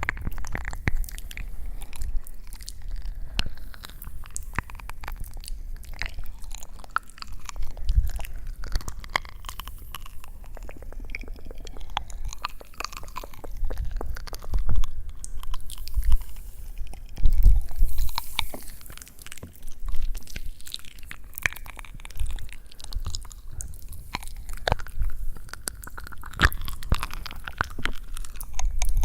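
Close-miked ASMR crunching and crackling: a dense, irregular run of small sharp clicks with now and then a louder, deeper thump.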